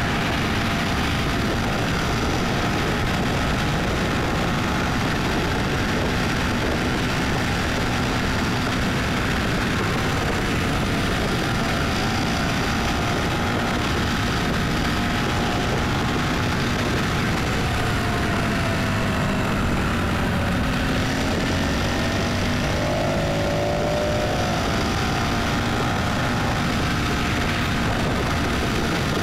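Steady road and engine noise of a car on the move, with a faint engine tone that dips and rises about two thirds of the way through.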